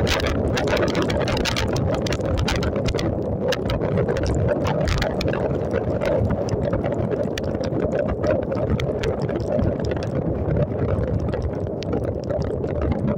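Wind rushing over the microphone of a moving motorcycle in rain, over the motorcycle's engine running and its tyres on the wet road.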